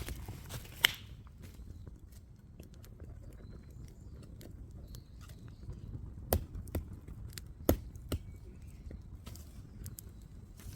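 A few scattered sharp clicks and knocks, the loudest about a second in and a cluster around two-thirds of the way through, over a low steady rumble.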